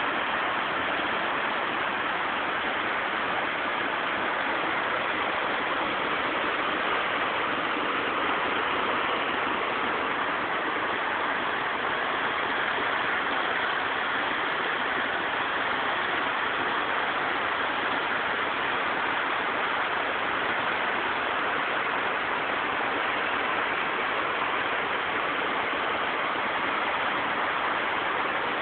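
River water rushing, a steady unbroken roar of moving water.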